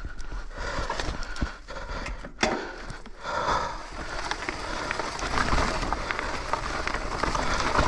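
Trek Slash 7 mountain bike descending a loose dirt trail: tyres crunching over dirt and stones, with the bike rattling and clicking. A sharp knock comes about two and a half seconds in, and the noise grows louder from about halfway as the bike speeds up.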